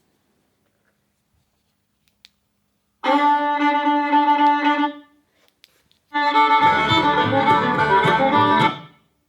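Music played through a newly installed golf-cart radio, in two short bursts of about two and three seconds with a brief break between; the second burst has a heavy bass line.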